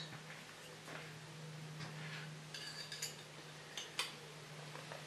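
Faint, scattered metallic clicks and light scrapes of a small hex key working at a set screw on the cast-iron gearbox casing.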